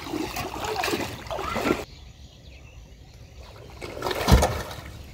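Shallow muddy water splashing and sloshing as a child wades through it and swings a large aluminium pot in and out of the water, with one loud, heavy splash about four seconds in.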